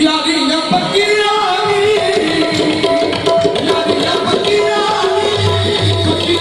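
Qawwali music: tabla drumming under singing and a shifting melodic line.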